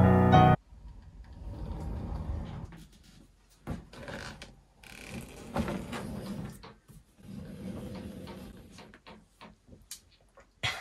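Piano music that cuts off about half a second in, then quiet rattling, rubbing and clicking of a bathroom's frosted-panel door being slid open, with a couple of sharp clicks near the end.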